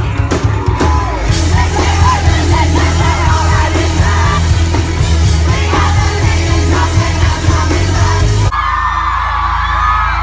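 Pop-rock band playing live with drums and vocals, the crowd yelling and singing along. About eight and a half seconds in, the sound cuts abruptly to crowd screaming over a steady low note.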